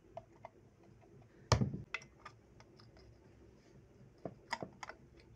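Scattered metal clicks and taps as a screwdriver and a steel slide plate are handled on the bed of an industrial sewing machine, with one louder knock about a second and a half in and a cluster of clicks near the end.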